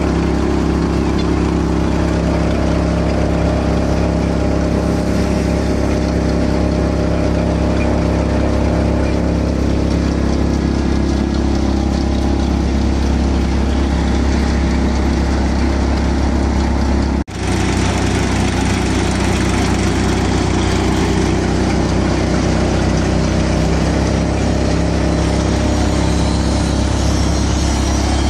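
Tractor engine running steadily at a constant speed. The sound drops out for a moment about two-thirds of the way through.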